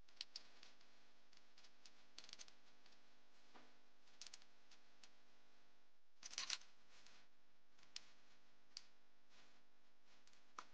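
Faint, scattered clicks and clinks of hands and tools working on ignition coils in a car's engine bay, with a short cluster of louder clicks about six seconds in. Otherwise near silence.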